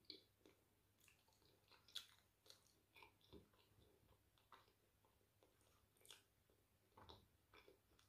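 Faint, soft chewing of yam with owo soup: wet mouth clicks and lip smacks at an irregular pace.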